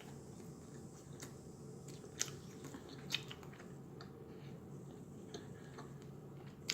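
A person chewing and biting food close to the microphone, quiet, with a few sharp clicks, the loudest about two and three seconds in.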